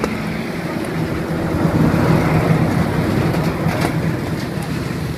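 Street noise with a low engine hum that swells louder in the middle and then fades, as a motor vehicle passes.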